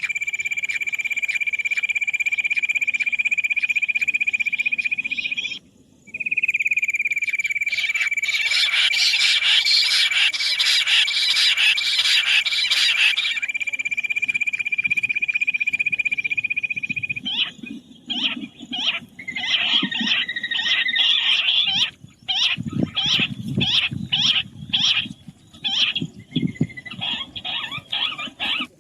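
Quail calling: a long, steady, shrill trill that breaks off for a moment about six seconds in, with a harsh rasping burst over it midway, then from about seventeen seconds rapid, repeated clipped call notes.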